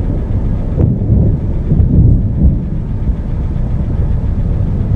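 Loud, low storm rumble with an uneven, gusting surge, like wind and thunder, and no distinct claps or rain patter.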